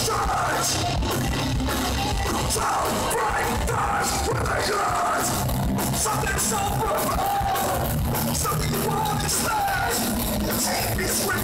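Rock band playing live: drums with crashing cymbals, electric guitars and bass, and the singer's vocals over them, heard loud and dense from the crowd.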